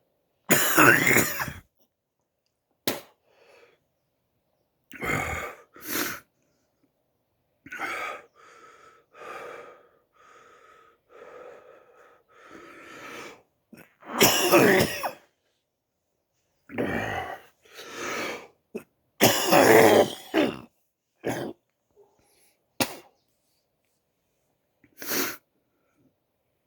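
A person coughing again and again in separate loud coughs, the hardest about a second in, about halfway through and about two-thirds through, with quieter throat-clearing sounds between them.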